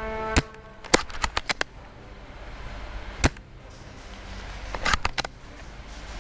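Airsoft guns firing: a single crack, a quick string of about five shots, another single shot, then another quick string of shots near the end.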